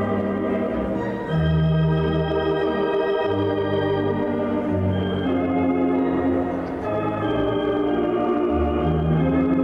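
The Blackpool Tower Ballroom Wurlitzer theatre organ playing dance music. Held chords sound over bass notes that change every second or so.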